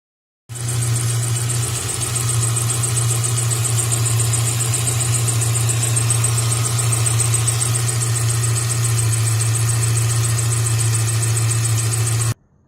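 Subaru Outback engine idling with a fast-pulsing, high-pitched squeal over the steady engine hum, the idle noise from a worn AC belt and idler pulley. It starts abruptly about half a second in and cuts off just before the end.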